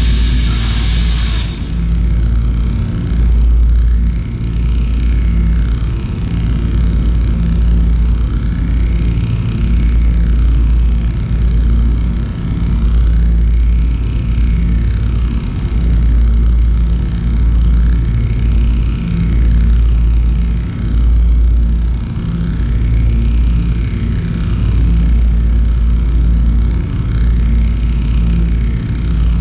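Electronic soundscape of an interactive projection installation: a loud, deep pulsing drone with a fainter tone sweeping up and down about every two seconds, opening with a short burst of hiss.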